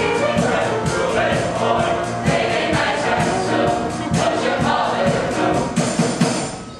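A stage cast singing together over music with a steady beat, about two beats a second.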